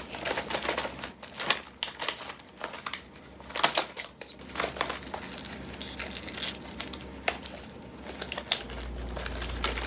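Chair-assembly screws being freed from their plastic packaging: plastic crinkling and tearing with irregular clicks and small metal clinks of the loose screws, the loudest a little under four seconds in.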